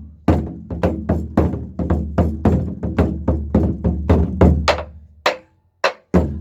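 Drumsticks striking a Korean nanta drum in a fast galloping hoofbeat rhythm, about four to five strokes a second. The strokes thin out and stop about five seconds in, then one more stroke lands near the end.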